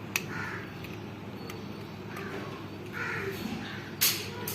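Crows cawing a few times in the background, with sharp clicks and one louder short clatter about four seconds in from the iron's plastic housing and screws being handled.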